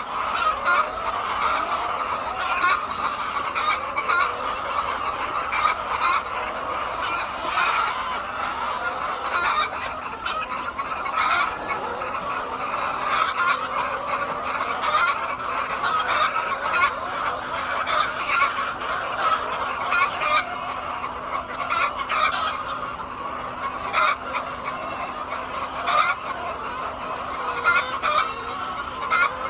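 A flock of hens clucking continuously, many calls overlapping, with short sharp calls standing out again and again. A faint steady hum runs underneath.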